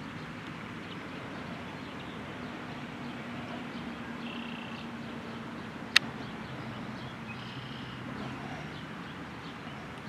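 Outdoor ambience: a steady low hum, a few short bird chirps, and a single sharp click about six seconds in.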